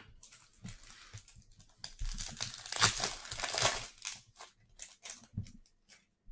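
A 2022 Bowman Baseball hobby pack's wrapper being torn open and crinkled, heaviest from about two to four seconds in, then a few short sharp crackles as it is handled.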